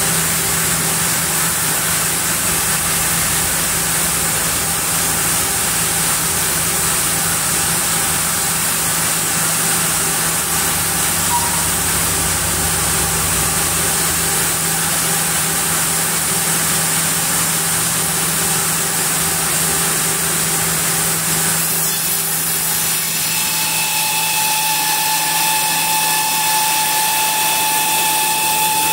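Sawmill band saw running with its carriage moving a large camphor log past the blade: a loud, steady machine noise with a low hum. About two-thirds of the way through, a higher steady whine made of several even tones comes in.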